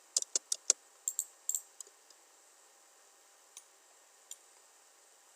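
Computer keyboard keys and mouse buttons clicking: a quick run of about eight clicks in the first second and a half, then a few single clicks spaced out.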